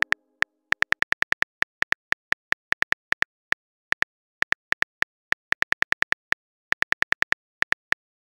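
Smartphone keyboard typing clicks: a string of short, crisp ticks, about five a second in uneven runs with brief pauses, and dead silence between them.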